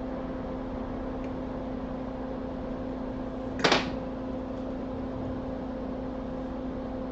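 Steady electrical hum from workbench equipment, with one short, loud burst of noise about three and a half seconds in.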